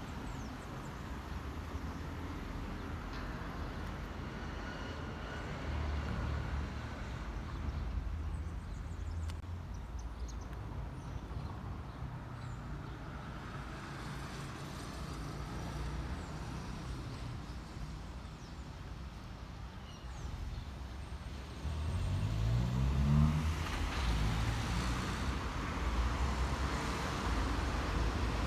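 Street traffic: a steady low rumble of passing cars, and about 22 seconds in a vehicle engine accelerates past, its pitch rising, after which the traffic stays louder.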